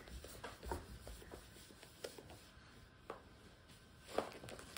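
Faint rustles and about five soft taps as a cat wand toy's feather and string brush and drag across a wooden floor, the sharpest taps near the end.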